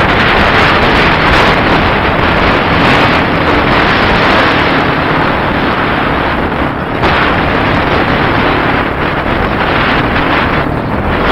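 Kawasaki KLX300R dirt bike riding along, its single-cylinder four-stroke engine running under heavy wind buffeting on the microphone, which covers most of it. A brief lull comes about seven seconds in.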